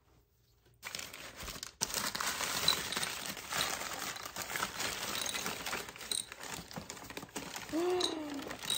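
Packing paper rustling and crinkling as a wrapped item is unwrapped by hand, starting about a second in, with light clicks among the rustle.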